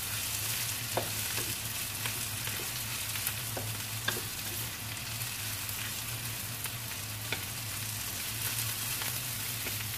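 Sliced shallots, garlic and chilies sizzling in hot oil in a wok, stirred with a spatula that knocks and scrapes against the pan a few times. The aromatics are frying until they begin to turn yellow.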